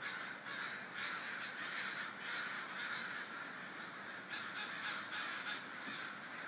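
A large flock of American crows flying over on their evening commute to roost, cawing continuously with many calls overlapping. A quicker run of short caws comes about two-thirds of the way through.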